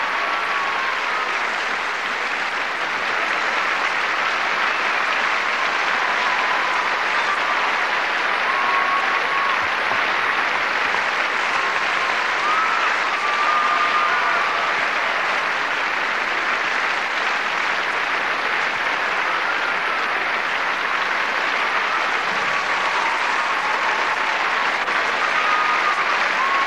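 Large theatre audience applauding steadily, a dense, sustained clapping, with a few brief calls rising above it now and then.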